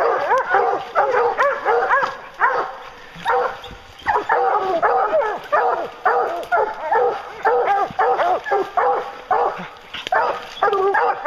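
A pack of English hounds barking and bawling at the tree, many short calls overlapping without a break, each rising and falling in pitch: hounds barking treed, the sign that a black bear is up the tree.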